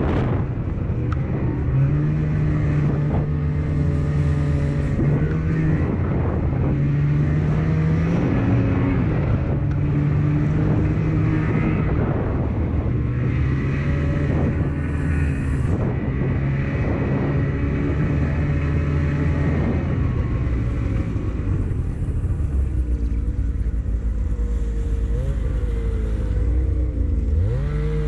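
Snowmobile engine running under the rider at changing throttle, its pitch stepping up and down as it crosses packed snow. Later it settles to a lower, steadier note, and near the end a second snowmobile close by revs up with a quick rising whine.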